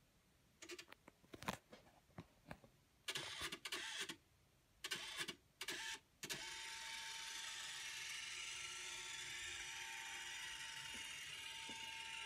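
A few clicks, then a Canon flatbed scanner's motor runs in short bursts before the scan head travels steadily with an even whine, during a lineart scan at 300 dpi.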